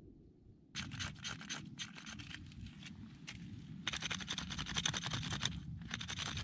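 The spine of an LT Wright Next Gen knife scraping glochids and spines off a prickly pear cactus pad in quick, repeated strokes. The scraping starts about a second in, pauses briefly, and turns denser and louder just after halfway.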